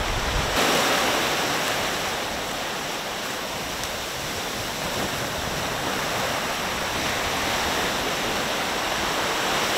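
Surf washing in over the sand, a steady rush of breaking, foaming water.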